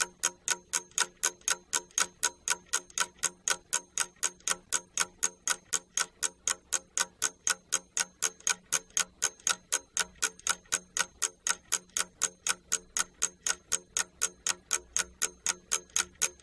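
Ticking-clock sound effect, fast and even at about four ticks a second, counting off the thinking time for a quiz question.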